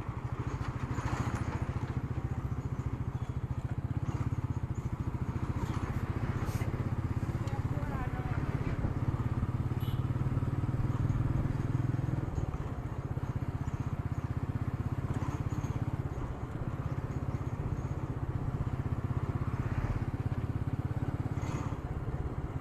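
Royal Enfield Meteor 350's single-cylinder engine running steadily at riding speed, its exhaust pulses even and low, heard through an action camera's built-in microphone with wind and road noise.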